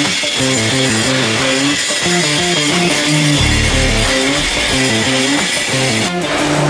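Background music: an electric guitar and bass track playing short stepping riffs over a steady beat.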